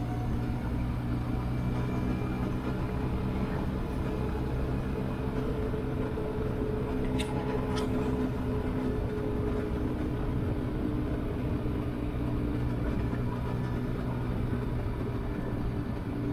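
Benelli TRK 502X's 500 cc parallel-twin engine running at a steady pitch. Two short sharp clicks come about seven and eight seconds in.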